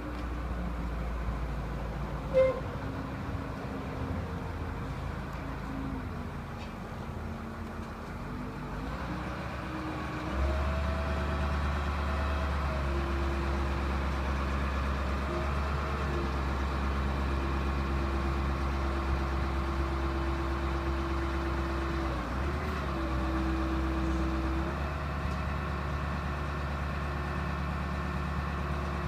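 Diesel engine of a Grove LT409 forklift running, its speed wandering at first, then rising and getting louder about ten seconds in and holding steady, with a short dip a little after twenty seconds. A single sharp knock about two seconds in.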